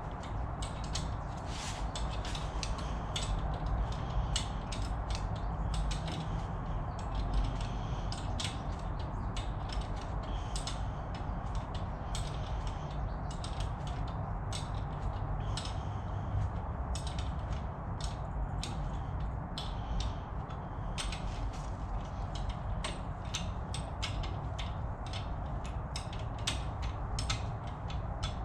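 Hand ratchet wrench clicking in repeated strokes, several clicks a second, as the brake caliper mounting bolts are tightened.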